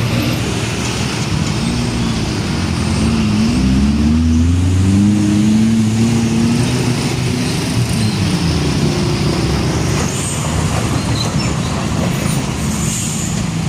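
Heavy diesel trucks passing in road traffic. An engine's pitch rises and falls as it pulls away, over steady tyre and road noise.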